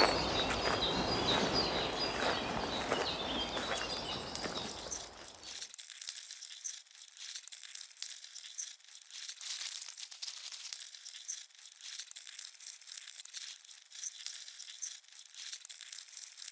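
Footsteps crunching on a dry, leaf-strewn path, fading away over the first five seconds or so. After that only a faint, high rustling with scattered light ticks remains.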